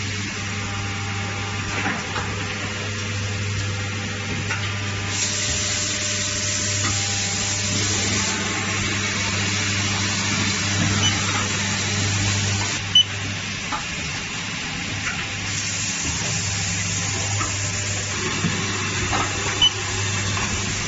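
Automated heating-core assembly machine running: a steady low hum under a noisy mechanical bed, with two long stretches of hissing and a couple of sharp clicks.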